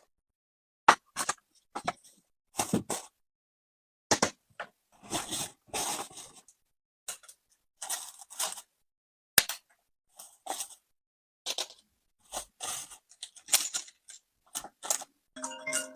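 Packaging being handled and torn open: a string of separate short rustles, tears and sharp clicks with silent gaps between them.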